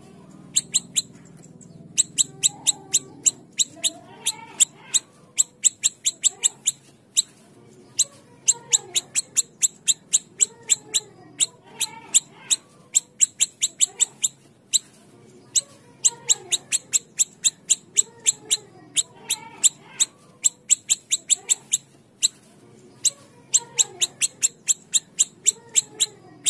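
Siri-siri kecil songbird singing: repeated runs of sharp, very high notes in quick succession, each run lasting about two seconds, with lower swooping whistles between the runs.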